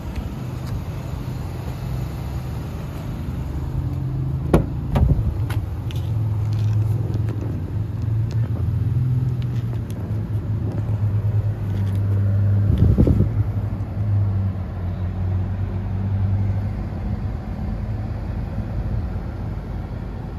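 Continuous low rumble with a few sharp clicks about four and a half to five and a half seconds in, fitting a car door being opened, and another knock about thirteen seconds in.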